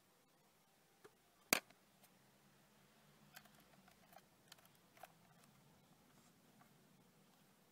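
Portable cassette recorder's cassette door snapping shut with one sharp click about a second and a half in, followed by several lighter clicks and taps as the recorder is handled, over a faint low hum.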